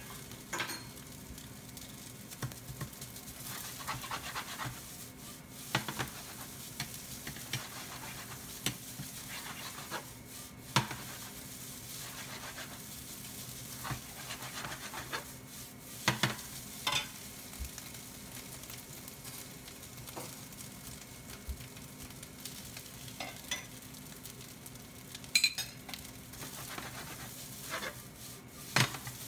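Fried rice sizzling in sesame oil in a non-stick frying pan on an induction hob, stirred and scraped with a ladle, with sharp clacks of the ladle against the pan every second or two.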